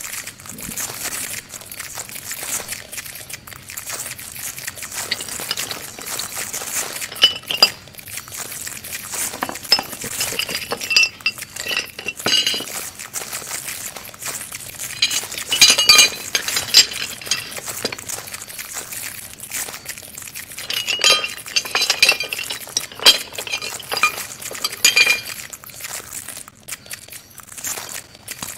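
Clusters of light, bright clinks and crackles, like glass being handled, over a steady hiss, returning several times: part of a live-mixed, processed sound-art piece built from a house's own sounds.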